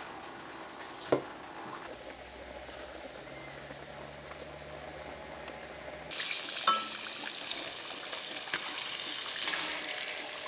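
Hot oil sizzling as breaded chicken deep-fries, starting abruptly about six seconds in as a dense, steady hiss. Before it there is a faint hum with a single sharp click about a second in.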